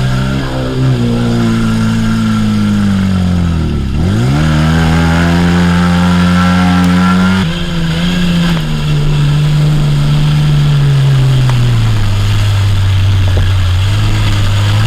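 Off-road 4x4 vehicle's engine working under load. The revs sag, drop sharply about four seconds in and climb straight back, then hold and ease slowly down.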